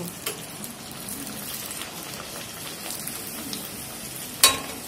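A stuffed puri deep-frying in hot oil in a steel kadai, a steady sizzle. About four and a half seconds in comes one sharp metallic clack with a brief ring, the spatula knocking against the pan.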